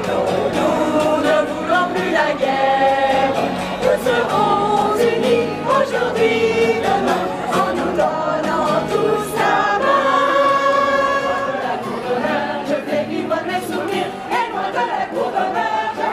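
Amateur mixed choir of men's and women's voices singing together from song sheets, accompanied by a strummed acoustic guitar.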